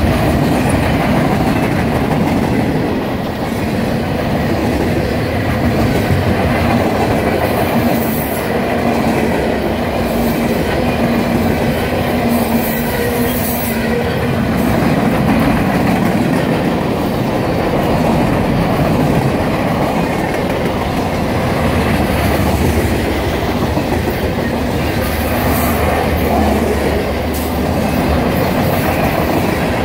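CSX mixed freight train's cars rolling past, wheels clacking over the rail joints in a steady loud rumble, with brief high wheel squeals now and then.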